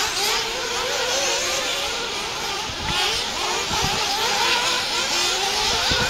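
Several small nitro engines of radio-controlled off-road buggies running around a track, their high whine rising and falling as the throttles open and close.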